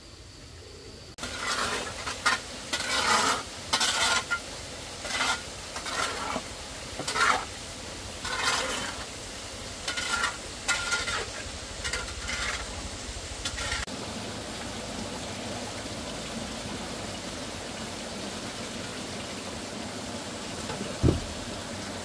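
A series of sharp scraping strokes, about one a second, then a steady hiss, with a single low thump near the end.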